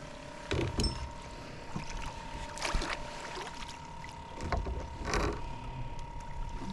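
Sounds on a small fishing boat while a hooked blue catfish is fought: a steady electric whine runs throughout over a low rumble. A few short splashy noises come at about half a second, near the three-second mark and past five seconds.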